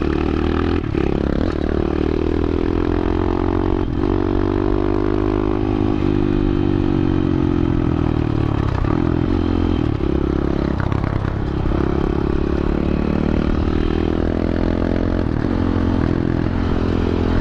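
125cc single-cylinder four-stroke pit bike engine running while being ridden, its revs rising and easing off with several brief dips.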